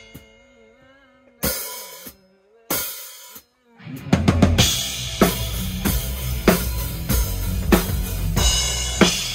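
Live rock band rehearsing, with a full drum kit (bass drum, snare, cymbals, hi-hat) playing a steady beat. It comes in about four seconds in, after a few short bursts of sound that cut off abruptly.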